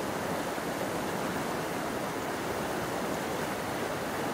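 River water running: a steady rushing noise.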